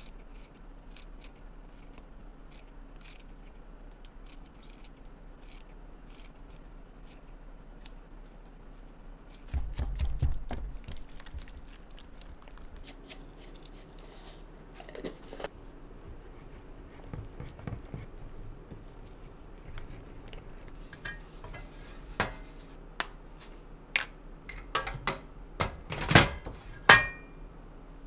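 Kitchen clatter of dishes and utensils: scattered light clicks, a dull thump about ten seconds in, and a run of sharper knocks and clinks near the end, one ringing briefly.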